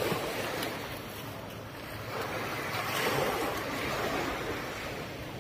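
Gentle surf washing onto a sandy beach, one wash swelling about two seconds in and then easing, with some wind rumble on the microphone.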